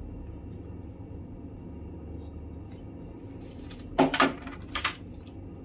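Kitchen utensils clattering twice, about four seconds in and again a little later, with a low steady hum underneath.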